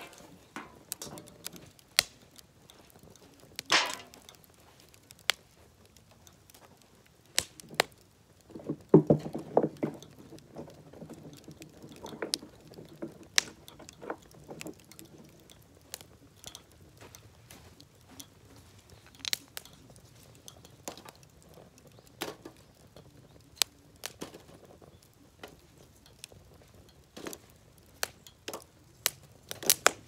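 Wood fire of scrap lumber burning in a grill tray, crackling with irregular sharp pops and snaps. A louder cluster of crackles and knocks comes about nine seconds in.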